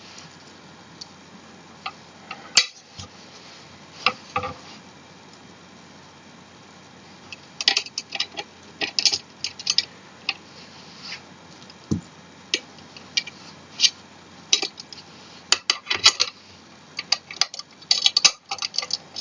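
Metal hardware and parts of a gaming office chair clinking and knocking as it is put together by hand: irregular sharp clicks, sparse at first, then busier clusters in the second half.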